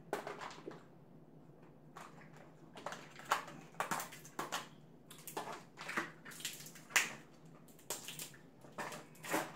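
Boiled crab leg shells being cracked and snapped apart by hand: a string of irregular sharp cracks and crunches.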